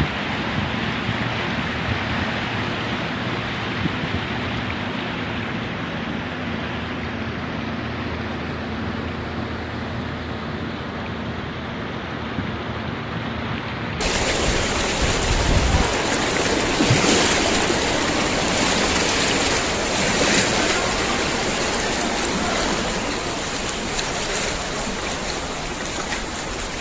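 Steady rushing of water. About halfway through it switches abruptly to a louder, brighter stretch of the same kind of water noise.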